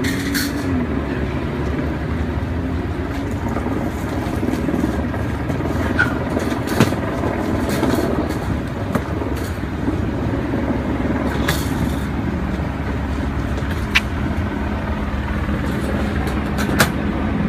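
A motor running steadily with a low hum, with a few sharp clicks or knocks over it.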